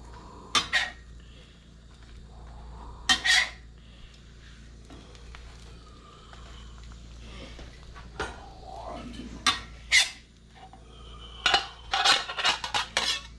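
Kitchen utensils clinking and knocking against dishes and cookware: single sharp clinks every few seconds, then a quick run of several near the end.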